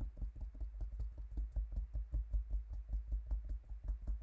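Fingertips of both hands tapping rapidly on the collarbone points in EFT tapping. A quick, even patter of soft taps, about seven a second.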